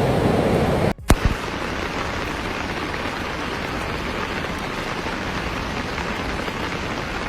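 Steady hiss of heavy rain. About a second in the sound drops out for an instant and a sharp click follows, then the steady hiss resumes.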